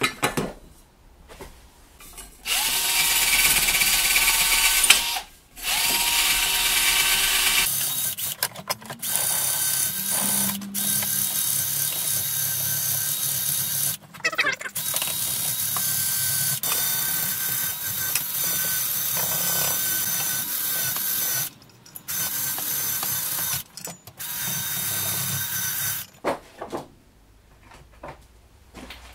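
Handheld power tool running in long spells that stop and start several times, working rust off a motorcycle's stainless steel exhaust header pipes.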